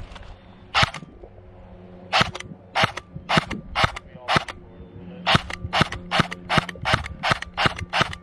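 Airsoft gun firing single shots: one sharp crack, then from about two seconds in a steady string of shots at roughly two a second.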